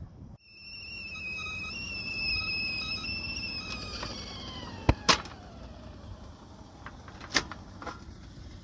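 Stovetop whistling kettle whistling at the boil on a portable butane camp stove, a steady high whistle; after about four seconds the stove is turned off and the whistle slides down in pitch and dies away as the steam eases. Sharp clicks come around five seconds in and again a couple of seconds later, from the stove knob and the kettle's spout cap being flipped open.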